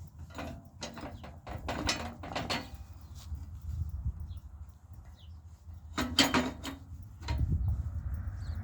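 Metal clanks and scrapes as a mini bike's front forks are fitted back onto the frame. They come in two bunches, one over the first few seconds and one about six seconds in, over a steady low hum. A low rumble comes in and grows louder about seven seconds in.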